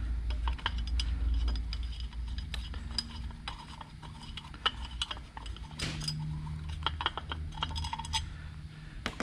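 Light metal clicks and clinks, scattered and irregular, as a metal rocker box base plate is handled and seated on a Harley Twin Cam cylinder head, over a low steady hum.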